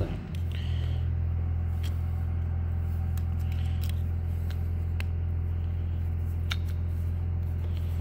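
A steady, loud, low machine hum that holds one unchanging pitch, with a few faint light clicks over it.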